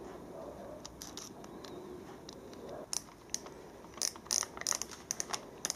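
Micrometer ratchet stop clicking as the spindle is wound down onto a steel slip gauge; the ratchet slips once measuring pressure is reached. A few scattered clicks come first, then a quick run of clicks in the second half.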